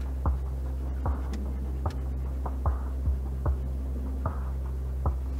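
Steady low drone of a pickup truck driving slowly on a dirt road, heard from inside the cab, with irregular knocks and rattles every half second or so as it bumps along.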